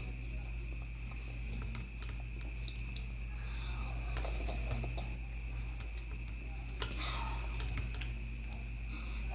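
Scattered light clicks and taps of eating: utensils and seafood shells handled on a plate, over a steady hum.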